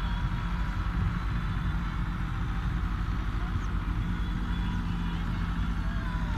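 Tractor engine running steadily at a constant speed, a continuous low drone with no change in pitch.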